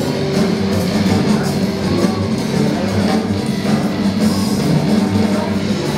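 Loud rock music with drums and guitar.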